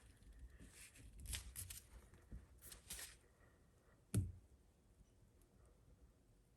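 Snap ring pliers working a thick snap ring off an NP205 transfer case shaft: faint metal scraping and light clicks for about three seconds, then one sharp metallic click about four seconds in.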